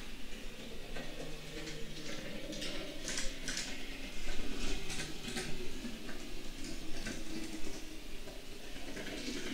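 N gauge Class 68 model locomotive running on the track: a steady low motor hum with irregular light clicks as the wheels pass over rail joints and points, busiest in the middle.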